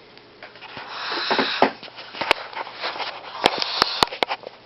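Breathy, hiss-like sniffing noises, then scattered rustling with a handful of sharp clicks, from feeding a young barn owl by hand.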